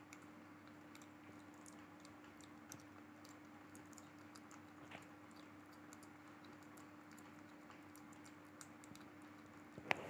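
Kitten eating wet cat food greedily: faint, rapid little clicks of chewing and licking over a low steady hum. One sharper knock comes near the end.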